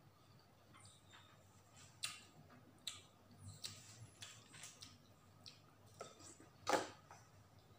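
Knife working through watermelon flesh on the rind, giving scattered light clicks and taps as the seedy fruit is cut and picked at, then one louder, short wet mouth sound near the end as a piece of watermelon is eaten.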